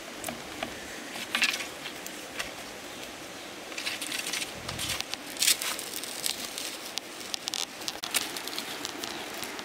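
Scattered clicks, creaks and rustles of a split bamboo stave being bent and handled while a vine cord is tied on as a bowstring, with light steps on wet gravel.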